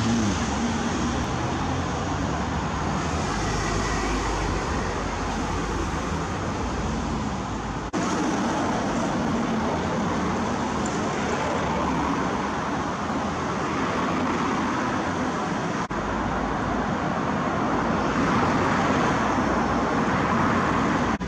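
Steady traffic noise from a busy main road, cars passing one after another, with a vehicle's engine hum plain near the start. The sound breaks off abruptly and resumes twice, about a third and two thirds of the way through.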